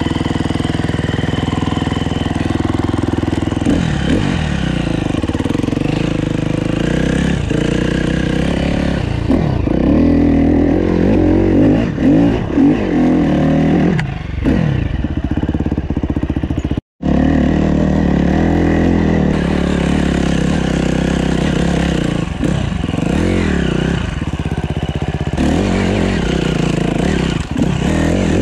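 Dirt bike engine heard close up from the rider's helmet camera, running and revving up and down as the bike is ridden over rough grassy ground. The sound drops out for an instant about halfway through.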